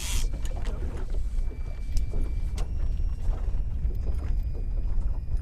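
Steady low rumble of an open fishing boat on the river, with a few faint clicks and a faint high steady whine.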